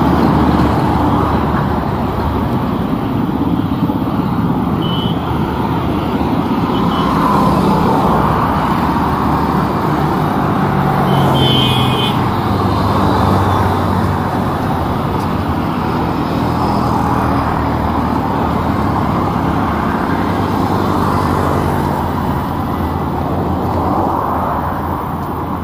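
Busy city road traffic: a steady wash of passing vehicles' engines and tyres, with a couple of brief high-pitched tones about five seconds in and near the middle.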